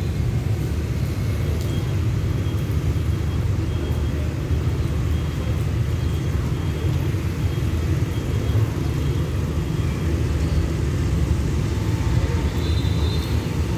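Steady low rumble of a Thai rapid train's passenger coaches rolling slowly along the platform as the train pulls out of the station.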